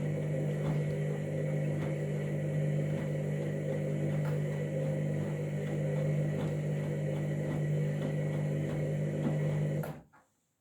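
Candy washing machine running with a steady low hum and faint light ticks, which stops abruptly near the end.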